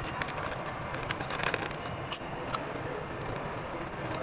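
Paper snack bags being folded shut by hand: scattered crinkles and clicks of stiff paper over a steady low background hum.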